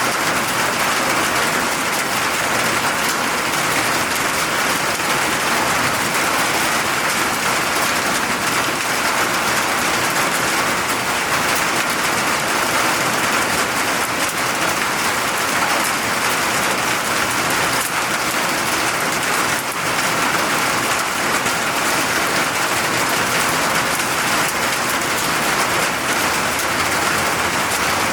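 Steady rain falling, an even hiss of drops on surfaces without let-up.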